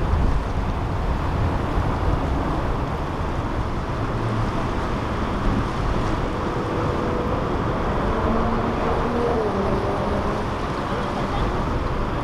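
Boat engines running as a powerboat passes, over steady wind and water noise.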